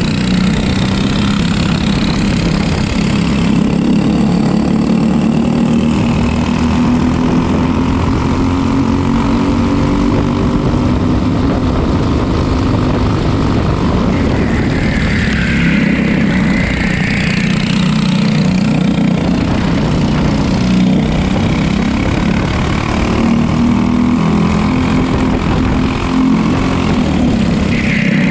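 Racing kart's single-cylinder engine running on track, its pitch slowly climbing and dropping as it accelerates and slows.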